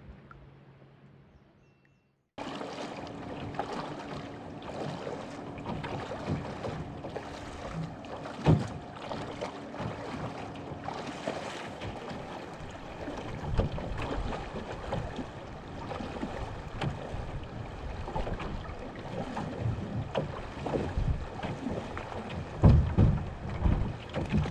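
Starting about two seconds in, a canoe moves through a shallow river riffle: water rushing and splashing around the hull, with frequent knocks and bumps against the hull. There are louder thumps near the end.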